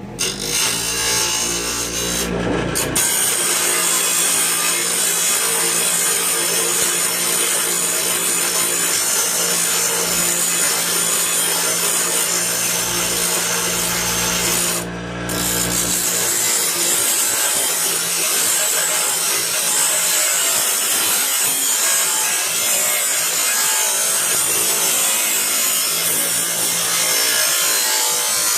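Bench grinder grinding the plasma-cut edge of a steel circular saw blade: a loud, steady grinding that starts at once, with a brief dip about halfway through before it carries on.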